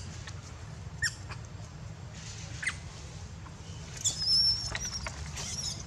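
Baby macaque crying in short, high-pitched squeaks, with a longer thin squeal about four seconds in, over a steady low background rumble.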